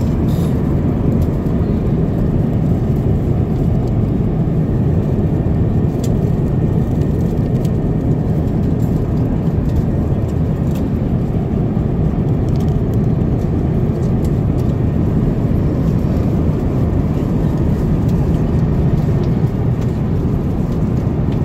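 Steady low rumble of jet airliner cabin noise, engines and airflow droning evenly, with a few faint clicks.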